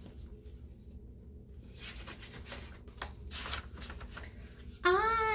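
Paper pages of a picture book rustling as they are turned and handled, a cluster of soft rustles in the middle. A woman's voice starts just before the end.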